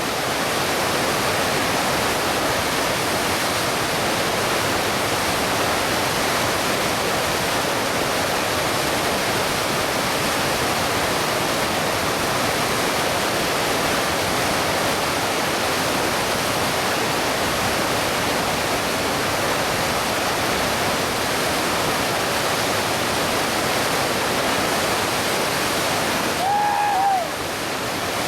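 Whitewater of the Lachine Rapids on the St. Lawrence River rushing steadily. Near the end, a short high-pitched call rises and falls.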